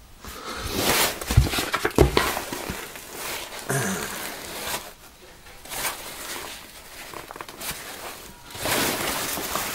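Nylon fabric, mesh and straps of a Gregory Stout 65 backpack rustling as it is handled, in irregular bursts, with a couple of dull knocks about one and a half and two seconds in.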